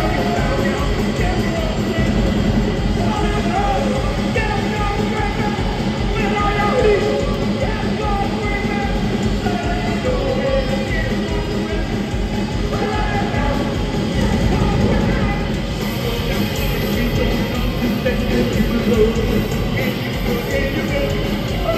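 Live rock band playing loud, punk-style music, with a singer's vocal over it.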